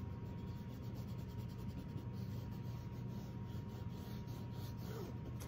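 Cloth rag rubbing in quick repeated strokes on a coarse, oil-stained canvas, wiping wet paint back off the surface, over a steady low hum.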